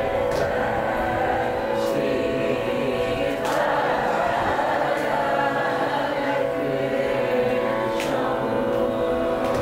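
A group of singers singing a Carnatic song together in unison, holding long notes, with a few hand claps keeping the tala.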